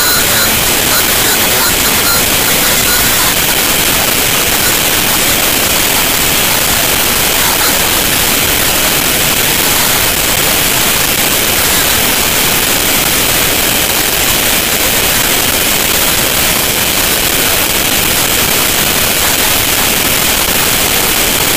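Loud, steady hiss that holds an even level, with no distinct events in it.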